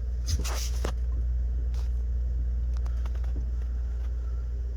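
A steady low rumble with a few faint clicks and knocks.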